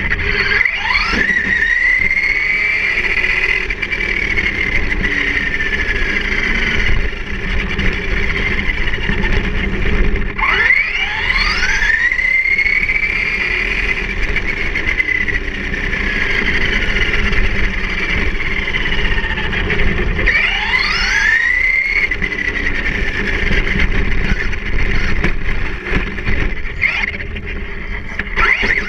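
Traxxas Rustler VXL's brushless electric motor and drivetrain whining, heard on board, as the RC truck speeds up hard three times about ten seconds apart. Each time the pitch sweeps up quickly and then falls away slowly, over a steady rumble of tyres on asphalt.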